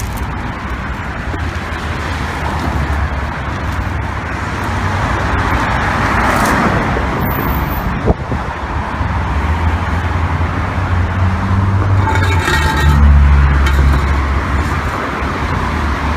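Steady street traffic noise with a low rumble. The rumble swells as a heavier vehicle passes about nine to fourteen seconds in, and there is a single sharp knock about eight seconds in.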